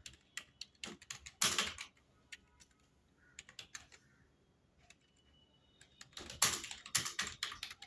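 Typing on a computer keyboard: quick runs of keystrokes, slowing to occasional taps for a few seconds in the middle, then a fast burst of typing near the end.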